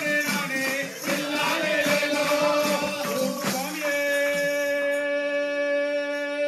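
Devotional bhajan singing with rhythmic percussion strokes. From about four seconds in, the voice settles into one long held note.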